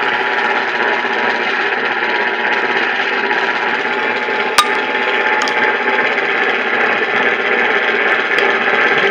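Steady hiss of radio static, with one sharp click about four and a half seconds in.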